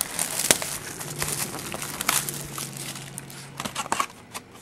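Cardboard trading-card box being slid out of its sleeve and handled: rustling and scraping packaging with several sharp taps and clicks, the loudest about half a second and two seconds in.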